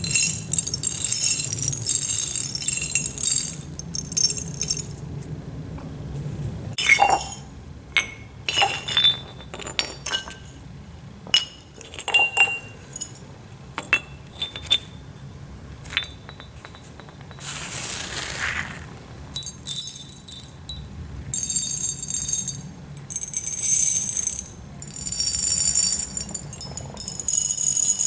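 Tiny aquarium gravel pebbles rattling in a dense, bright shower, which thins about seven seconds in to scattered single clicks and clinks. After a short swish, dense rattling starts again about twenty seconds in.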